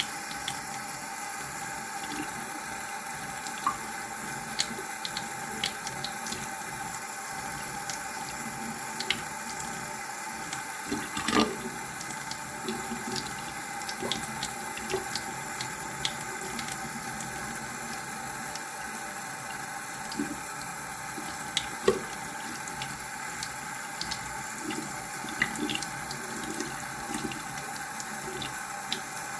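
Water running steadily from a tap, with scattered light taps and clicks over it; the loudest comes about a third of the way in.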